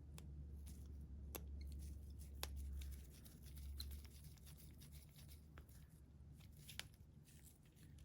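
Faint work on tiny phone screws with a precision screwdriver and tweezers: a handful of sharp little ticks and light scraping, over a low steady hum.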